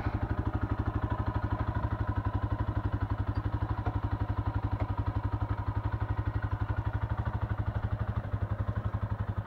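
ATV engine idling with a steady, even low pulse that holds its pace throughout.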